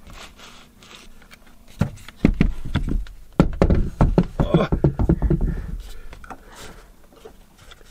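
Irregular knocks, taps and scrapes of hands handling screws and a metal fan-box bracket against wooden framing. The knocks come in a cluster through the middle and there is no drill running.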